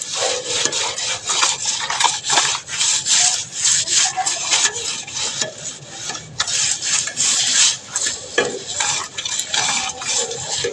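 Repeated rasping strokes of a hand tool scraping over a rough surface, about two strokes a second, the kind of scraping heard when finishing cement or plaster work.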